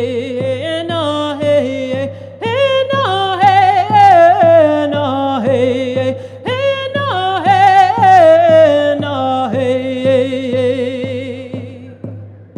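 A woman singing a Navajo song in a clear, sustained voice with wavering pitch, over a steady drumbeat at about two strokes a second. Her voice fades out near the end, leaving the drumbeat.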